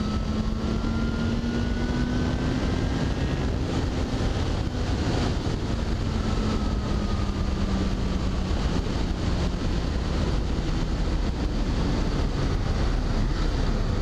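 Motorcycle engine running at steady cruising speed, its pitch rising gently a couple of times, under heavy wind rush on the helmet-mounted camera's microphone.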